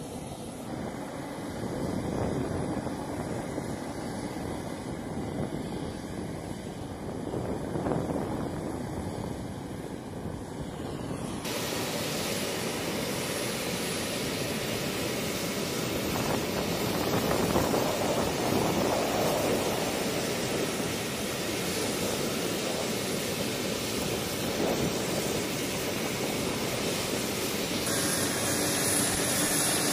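A-10C Thunderbolt II jet engines running on the flight line: a steady rushing jet noise that slowly grows louder, changing abruptly twice.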